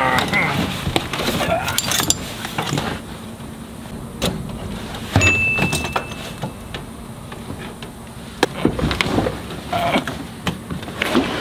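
Scattered metal clinks and knocks of tools and nuts being handled at a car's rear shock absorber top mount, worked from inside the trunk, with a brief high tone about five seconds in.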